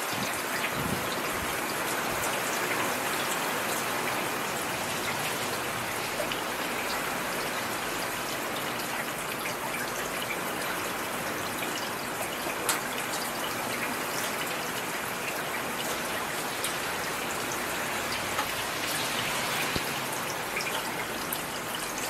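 Heavy rain falling steadily: an even hiss with a few sharper drop ticks scattered through it.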